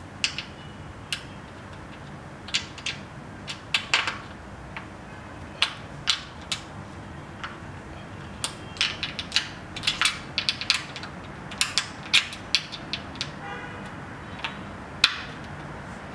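Irregular metallic clicks and taps as the aluminium rails and corner bracket of a projection-screen frame are fastened by hand at the corner screws, a few clicks ringing briefly.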